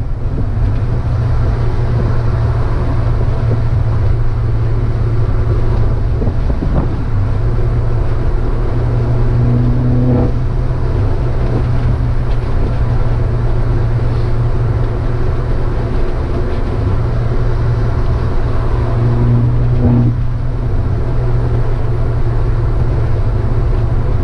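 Peugeot 308 THP's turbocharged four-cylinder engine and exhaust heard from inside the cabin while driving: a steady low drone that briefly shifts a few times.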